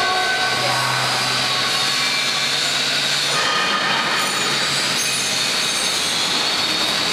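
Empty 2000-litre double sigma kneader running, its two sigma blades turning in the stainless trough under the drive gearbox: a steady mechanical running noise with a high whine that wavers slightly in pitch.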